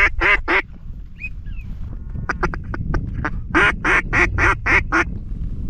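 Mallard-hen quacking in quick series: three loud quacks at the start, then a run of six about three a second near the end, with a few short high peeps between. Wind rumbles low on the microphone throughout.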